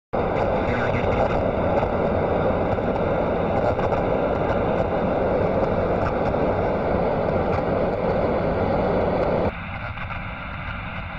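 Radio static: a loud, steady hiss and crackle with faint steady tones in it, which switches abruptly, about three-quarters of the way through, to a quieter, thinner static.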